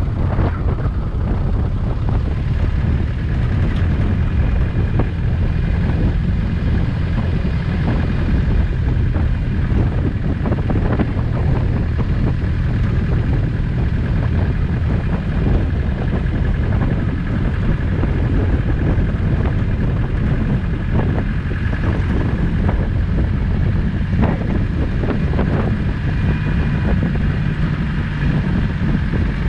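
Land Rover Discovery's 200Tdi 2.5-litre four-cylinder turbodiesel running steadily while driving over rough off-road track, with frequent knocks and rattles from the bumps and wind buffeting the microphone.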